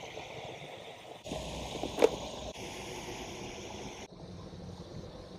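Water running and splashing at a canal spillway culvert, with one sharp, loud knock or splash about two seconds in; the water sound drops away about four seconds in.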